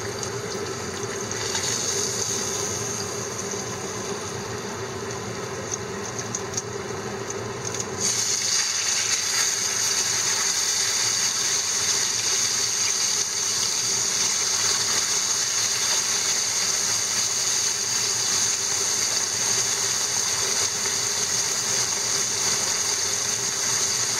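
Battered horse mackerel deep-frying in hot oil in a frying pan: a steady sizzle that jumps louder and brighter about eight seconds in, as more fish goes into the oil, and then holds.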